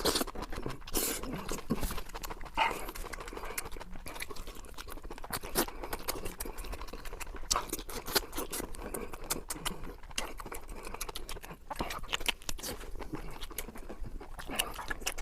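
Close-miked eating sounds: chewing and mouth noises with many short, irregular clicks and crunches.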